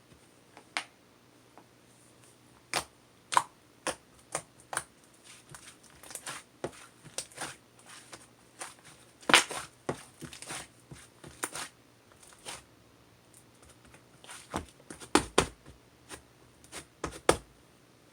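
A series of irregular sharp clicks and taps, some single and some in quick clusters, with short quiet gaps between them.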